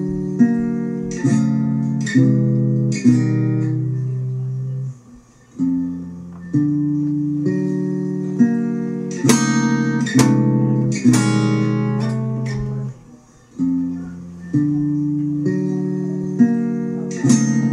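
Acoustic guitar music: chords strummed about once a second and left to ring, with two short pauses.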